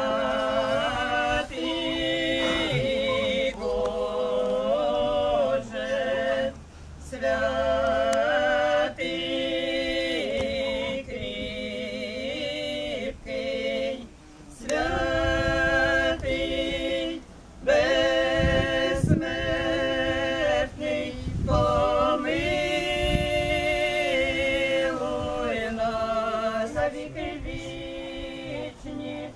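Unaccompanied funeral chant sung by a small group of voices, long held notes in phrases with short breaths between them. Some low rumbling is heard in the middle.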